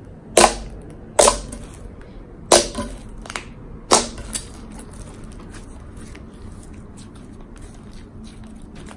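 Thick white-glue slime being pressed and kneaded by hand to work in purple dye, trapped air pockets bursting in about five loud, sharp pops over the first four and a half seconds, then only faint crackling as the slime is stretched out.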